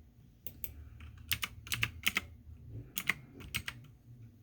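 Computer keyboard being typed on: sharp key clicks in short irregular clusters of two or three, over a faint low hum.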